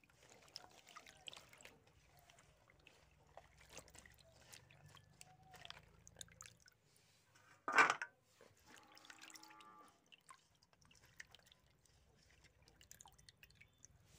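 Hands sloshing cut drumstick (moringa) pod pieces in a pot of water, with small splashes and drips. One louder clatter sounds about eight seconds in.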